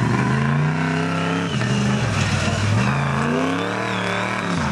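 Mega mud truck's engine revving hard, its pitch falling and rising several times as the throttle is worked.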